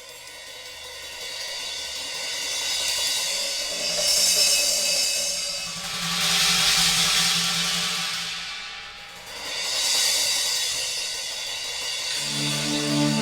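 Opening music built on swelling cymbal washes that rise and fall three times. Sustained keyboard chords come in near the end.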